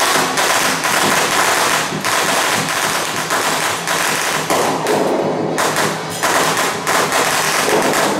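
A string of firecrackers going off in a rapid, continuous crackle of bangs, with procession band music faintly underneath.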